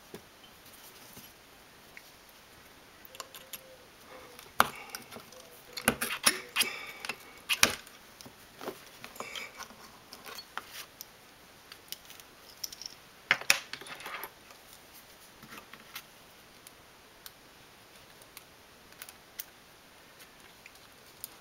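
Hobby-knife blades worked into the seam between an iPod Classic's front and its metal back case: irregular small metallic clicks and scrapes, busiest from about four to eight seconds in and again around thirteen seconds, then sparse single clicks.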